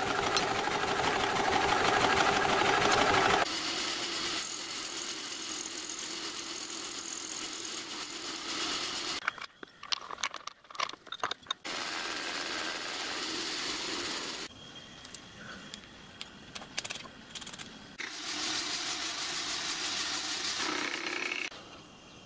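Milling machine running, its cutter milling a slot in a brass block. The steady machining sound breaks off and changes level several times, with a thin high whine in one stretch.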